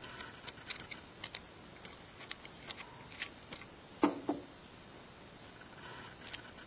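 Light clicks and ticks of small metal parts and tools handled while taking apart an AC Spark Plug band tachometer, with two louder knocks close together about four seconds in.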